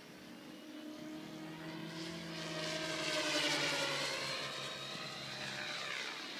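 A small propeller-driven aircraft flying past, its engine getting louder to a peak about three and a half seconds in, then dropping in pitch as it passes and moves away.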